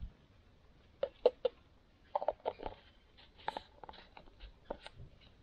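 A string of light clicks and knocks from a plastic cup and its lid being handled, some with a brief hollow ring.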